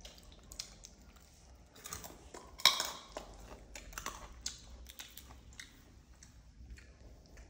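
Small eating and handling noises from baby monkeys eating crumbly snack pieces at a table: scattered soft clicks and crinkles, with one louder sharp crackle just under three seconds in.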